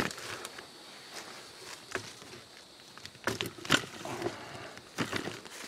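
Handling noise of a camera being moved and set down on a tarp and mosquito net in a tree cot shelter: scattered knocks and fabric rustling. The sharpest knock comes at the very start, and a cluster of knocks follows about three and a half seconds in.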